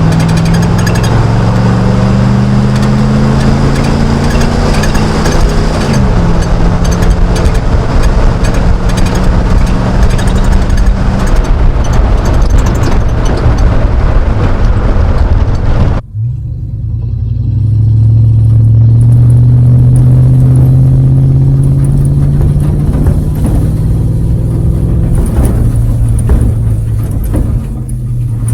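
Chevy 5.3 L V8 exhaust through Cherry Bomb Salute mufflers, under acceleration: the engine note climbs, drops at a gear change about six seconds in, then climbs again. About sixteen seconds in it cuts abruptly to a second pull that sounds cleaner, rising and then holding steady.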